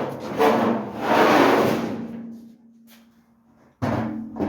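Sheet-metal dryer drum being pulled out of the cabinet: scraping and rubbing for about two seconds, then a sharp knock near the end that rings briefly.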